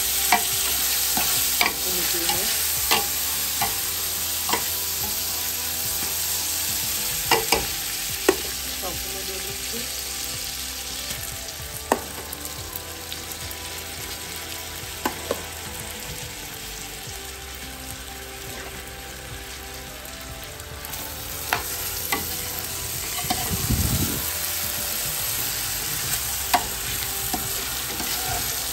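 Basmati rice frying in oil with browned onions in a large pot, sizzling steadily while a spoon stirs it, with scattered scrapes and knocks of the spoon against the pot. This is the rice being toasted before water is added for pulao.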